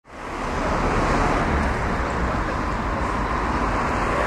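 Steady outdoor street noise with a low rumble, fading in over the first half second.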